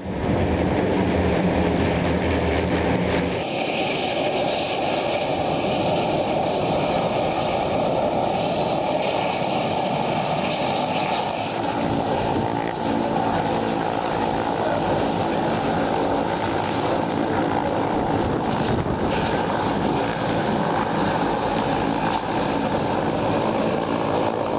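The steady, dense drone of many propeller-airplane engines as a large formation flies overhead.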